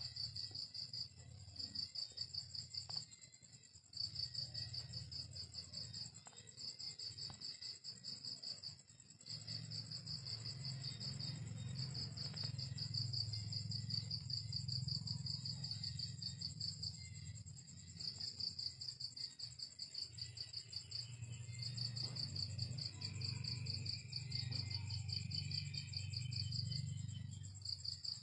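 Crickets chirping in fast trills of a second or two with short pauses between them, over a steadier high insect buzz, with a low rumble underneath.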